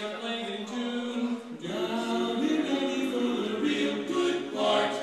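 Men singing a cappella in close barbershop harmony, several voices holding chords together.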